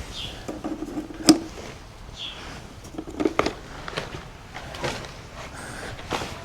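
Scattered knocks, clicks and rustling of hands working through nest boxes while collecting eggs, with one sharp knock about a second in and a couple of short high chirps.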